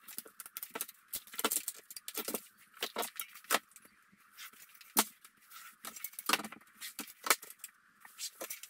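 Irregular light clicks, taps and scrapes of an aluminium track-saw guide rail being set down and shifted on a laminate worktop, with a marker pen drawing along it.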